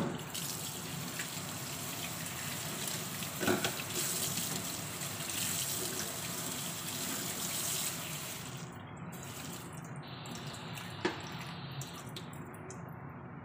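Kitchen tap running into a stainless steel sink as a fish is rinsed under the stream, with two short knocks; the hiss of the water thins after about eight seconds.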